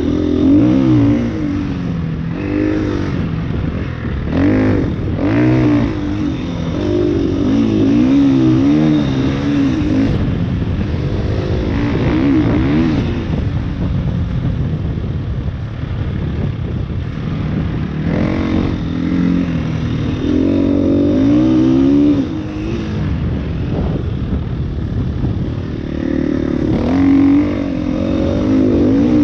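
KTM EXC-F 350's single-cylinder four-stroke engine being ridden hard, revving up and dropping back again and again, the pitch rising and falling every second or two.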